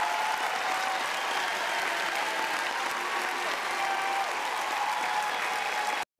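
Crowd applause, a dense steady clapping that cuts off suddenly near the end.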